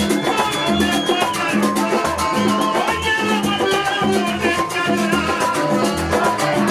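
Latin dance music with drums and percussion over a steady beat, with pitched instruments or voices held above it.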